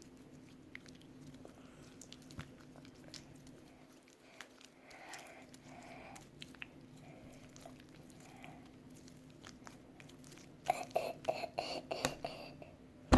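Very sticky slime being handled and stretched: faint sticky clicks, then a quick run of louder sticky pops and crackles near the end.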